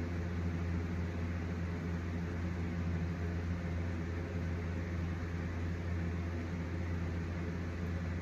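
Steady low hum with a hiss from a running electric motor, unchanging throughout.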